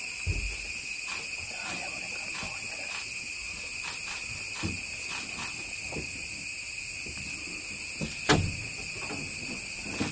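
Steady chorus of forest insects at several fixed high pitches, with scattered faint knocks and one sharp click about eight seconds in.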